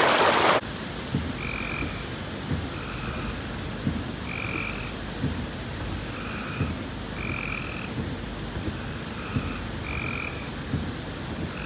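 Frogs calling in a downpour: short, repeated calls about once a second over the steady hiss of heavy rain, with irregular low taps of raindrops close by. A loud rush of floodwater cuts off about half a second in.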